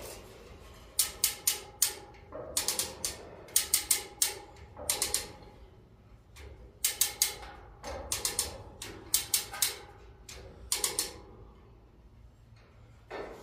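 Manual chain hoist being worked under load, its ratchet clicking in quick bursts of three to five sharp metallic clicks about once a second, with a pause about halfway through and another near the end, as it lifts a steel pallet-rack upright.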